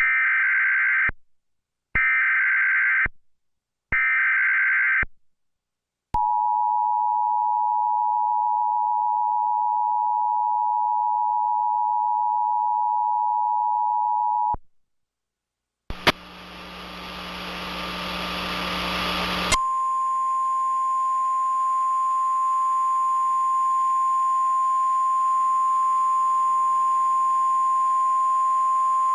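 Emergency Alert System tornado warning signal. It opens with three short, screechy digital header bursts about a second apart, then about eight seconds of the two-tone attention signal. After a moment of static and hum, the steady single-pitch weather radio alert tone sounds.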